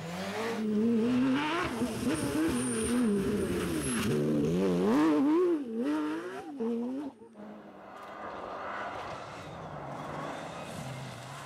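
Rally car engines at full throttle, the revs climbing and dropping again and again through gear changes and lifts as the cars drive through bends. About seven seconds in the sound cuts abruptly to a quieter, steadier engine note from another car.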